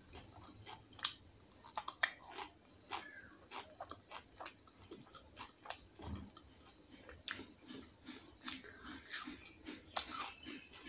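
Close-miked chewing of food with many sharp mouth clicks, after biting a raw green chilli. The chewing settles into a steady rhythm of about three chews a second in the second half.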